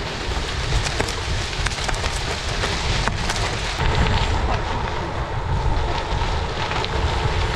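Wind buffeting the microphone, a heavy steady rumble, with scattered crackles and ticks over it.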